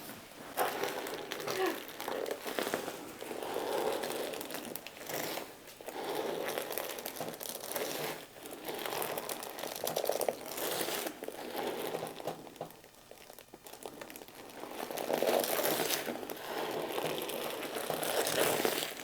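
Hands rubbing and kneading over skin and fabric during a deep tissue hip massage: a rustling, crinkling friction sound that swells and fades with each stroke every two or three seconds.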